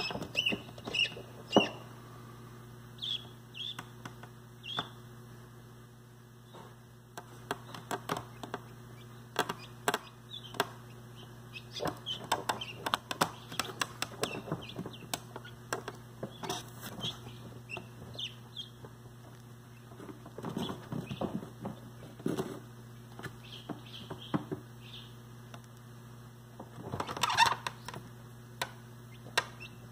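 Newly hatched guinea fowl keets peeping in short, high chirps, with scattered sharp taps and scuffles as they move about the incubator floor, and a louder scuffle near the end. A steady low incubator hum runs underneath.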